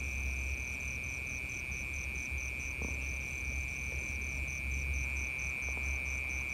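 Night insects calling: one gives a steady high-pitched trill while another chirps higher in an even pulse a little under three times a second, over a low rumble.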